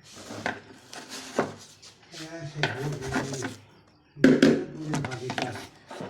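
Hand work on a refrigerator: irregular knocks and scraping or rubbing, with a louder stretch of scraping about four seconds in. A voice is heard faintly in the middle.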